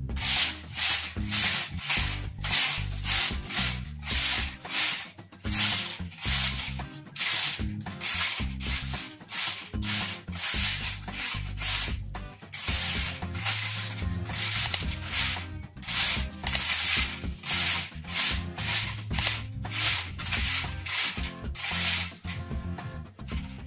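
Rhythmic rubbing strokes, about two a second, with a couple of short pauses.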